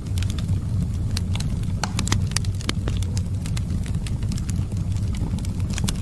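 Wood fire crackling, with irregular sharp pops over a steady low rumble.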